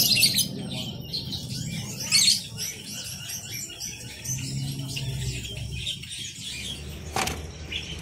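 Caged budgerigars chirping in many short, scattered high chirps over a low steady hum, with one sharp knock about seven seconds in.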